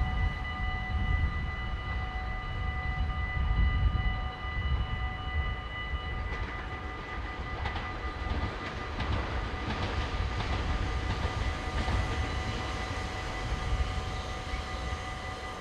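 Dutch level-crossing warning bell ringing steadily as the barriers come down, under a low rumble. From about six seconds in, a passing train's rattling clatter builds, is loudest in the middle and fades near the end.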